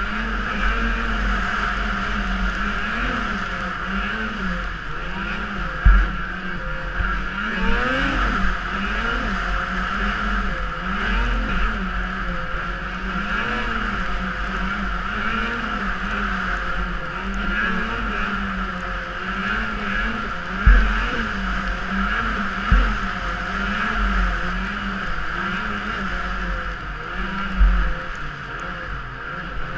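Snowmobile engine running under load through deep snow, its pitch rising and falling again and again as the throttle is worked. A few short low thumps stand out, the loudest about six seconds in and near the end.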